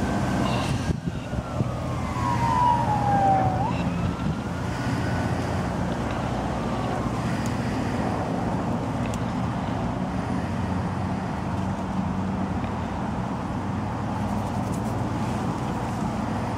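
A distant siren wailing, its pitch sliding down and then back up, over a steady low rumble of vehicle noise.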